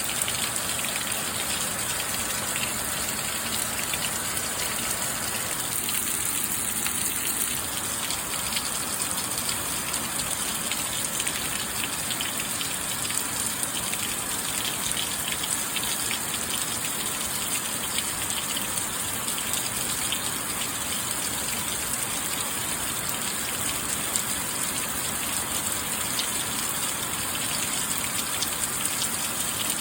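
Steady rain falling: an even hiss with many small drop impacts ticking through it, unchanging throughout.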